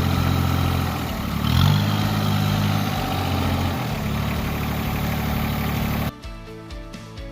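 Tractor engine running under load; its revs rise about a second and a half in, then ease off. The engine sound cuts off suddenly near the end, and background music takes over.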